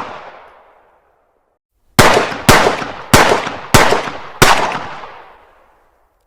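9mm pistol fired five times in quick succession, roughly half a second to three-quarters of a second apart, each shot sharp and followed by an echoing tail. The echo of a shot fired just before dies away in the first second.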